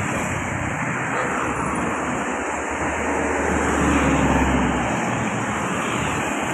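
Roadside traffic noise with a vehicle passing close by, its low engine rumble swelling about three to five seconds in.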